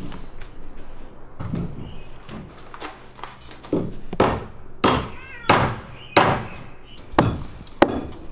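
A series of sharp knocks, about one every two-thirds of a second, starting about four seconds in, with softer scuffs and knocks before them.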